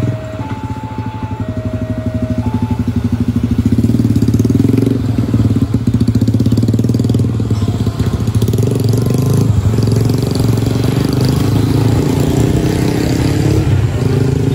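Level-crossing warning signal sounding two alternating tones, stopping about two seconds in. Motorcycle engines then run close by with a fast steady pulse, pulling away across the crossing.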